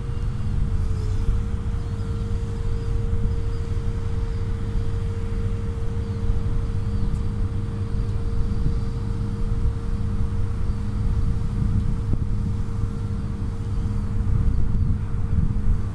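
Steady low rumble with a constant machine hum holding one pitch, which dips briefly about a second in.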